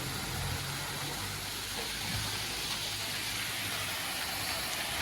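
Steady rushing of floodwater, an even hiss with no breaks, with a low hum underneath for the first second and again around two seconds in.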